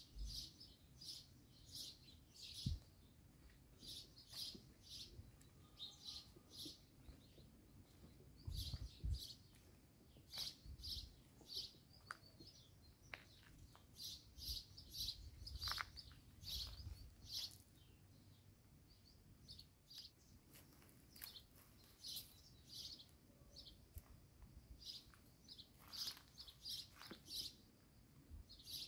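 Small birds chirping over quiet outdoor ambience: short high chirps repeating one or two times a second, with a few soft low thumps.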